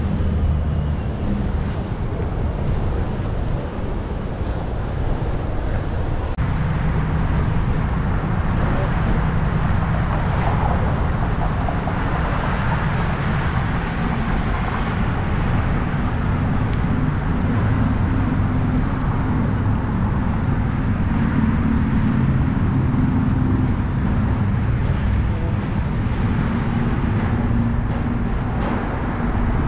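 Steady rumble of wind over the microphone of a camera on a moving bicycle, mixed with city street traffic.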